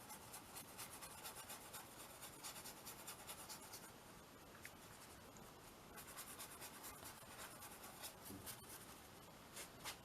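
Faint, rapid scratching strokes of a drawing tool rubbed across a small canvas, pausing briefly about halfway through.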